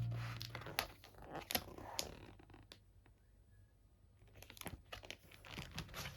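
Faint crinkling and light clicks from handling merchandise packaging, in scattered short bursts with pauses. Background music fades out at the start.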